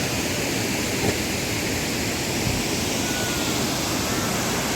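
Steady roar of a large waterfall, an even rushing noise with no breaks.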